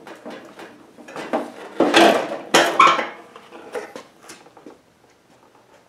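Red plastic body cover of a Honda HSS1332 snowblower being worked loose and lifted off: a string of irregular plastic knocks, rattles and scrapes, loudest two to three seconds in and dying away near the end.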